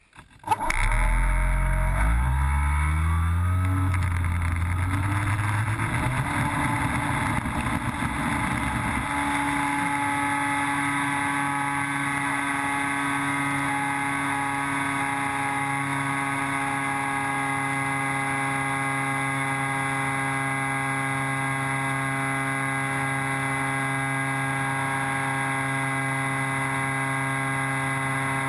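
Electric motor and propeller of a Dynam Cessna RC plane, heard up close from an onboard camera. It spins up from a standstill with its whine climbing in pitch over the first several seconds for takeoff. It then runs at a steady high pitch in flight.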